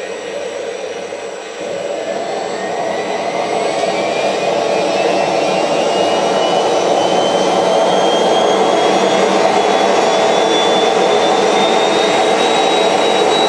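Homemade jet engine spinning up on a hand-held electric starter pressed to the compressor shaft, with combustion lit in the chamber. A steady rushing roar grows louder from about two seconds in, and a whine rises in pitch as the rotor gains speed.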